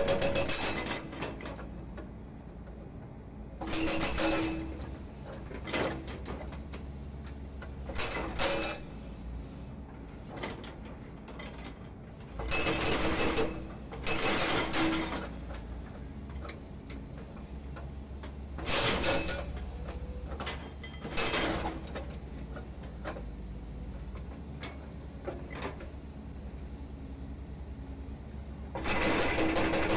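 Hydraulic breaker on a Volvo EC210D excavator hammering concrete pile offcuts with a rapid stream of blows. The hammering comes in several short bursts of a second or so, with the excavator's diesel engine running steadily between them. Near the end the hammering resumes and keeps going.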